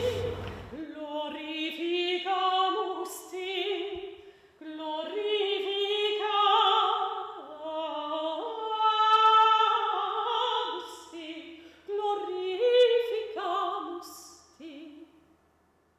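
A soprano singing a classical piece: a flowing melody of held notes with vibrato, fading out near the end.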